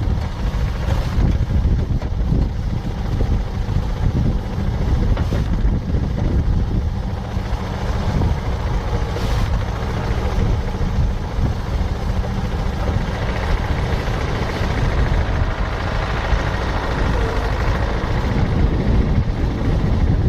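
John Deere 450 crawler dozer running steadily.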